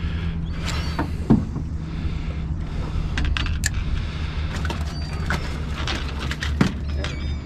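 Boat engine idling with a steady low hum, overlaid by scattered sharp clicks and knocks and a few faint high squeaks near the end.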